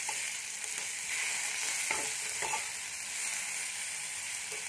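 Chopped vegetables and masala powder sizzling in hot oil in a frying pan on low flame, a steady hiss, while a spatula stirs them, scraping the pan a few times.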